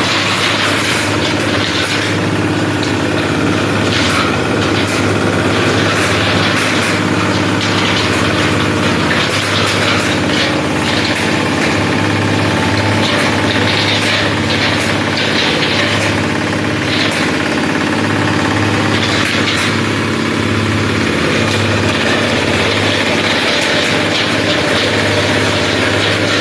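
Waste sorting and shredding machine running steadily with a low hum, with frequent irregular clicks and rattles over it.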